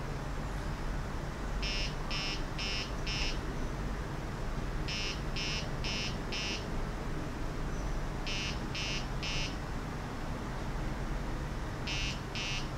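Electronic beeper giving short, high beeps in quick groups of three or four, about four groups, over a steady low hum.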